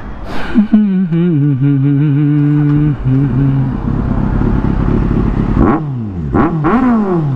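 Kawasaki Z800's inline-four engine through a loud aftermarket exhaust, pulling away at low speed. The engine holds a steady pitch for about three seconds, turns to a rough rumble, and then rises and falls in pitch a few times near the end as the throttle is worked.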